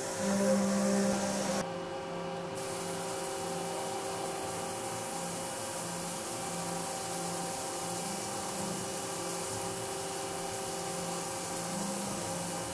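Ohtori FTV-500HV 5-axis machining center cutting a large disc part turning on its rotary table under flood coolant: a steady machine hum and hiss with a faintly pulsing low tone. The sound changes abruptly about a second and a half in, then holds steady.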